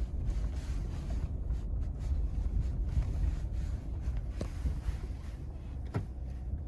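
Steady low rumble of a truck driving slowly off-road, with a couple of light knocks.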